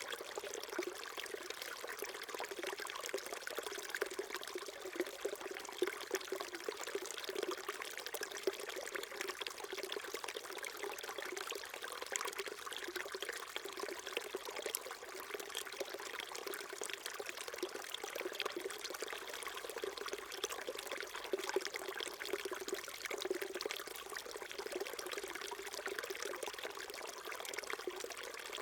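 Small mountain stream flowing and trickling over rocks: a steady babbling of water with fine splashing detail.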